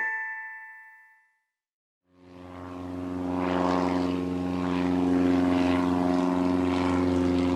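A chime rings out and fades, then after a second of silence a steady engine drone fades in and holds at one even pitch.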